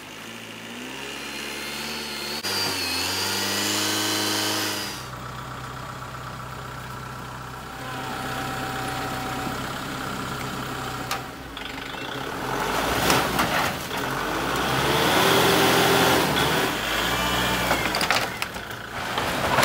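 Kubota compact tractor's diesel engine working the front-end loader as it lifts a log, revving up and down, then running steadily and getting louder near the end.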